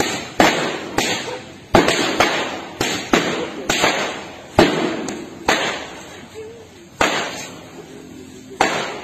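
Long whips cracked by several people in turn: about a dozen sharp cracks at irregular intervals, each with a short echoing tail, used in place of firecracker bangs.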